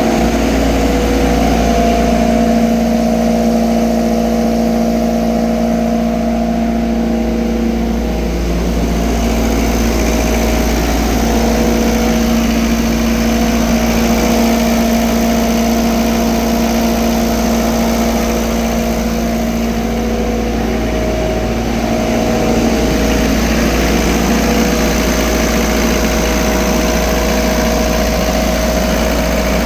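MEP-804A military diesel generator running at a steady speed: an even engine hum with several held tones.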